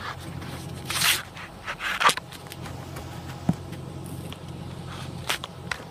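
Chevrolet Silverado's 4.8-liter Vortec V8 idling steadily through its stock muffler, a low even hum, with loud scraping and crunching noises about one and two seconds in.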